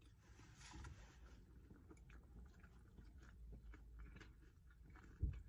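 Faint chewing of a mouthful of food, with small crunches. One soft thump near the end.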